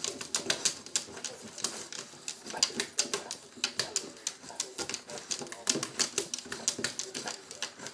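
A bulldog pawing at a window pane: its claws tap and scratch on the glass in quick, uneven clicks, several a second.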